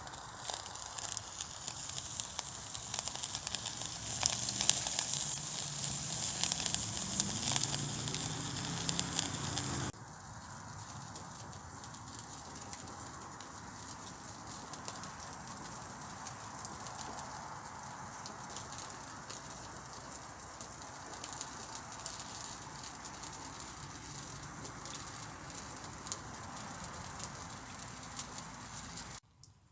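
Campfire crackling and popping with a steady hiss: dense and louder for the first ten seconds, then an abrupt cut to quieter, sparser crackling.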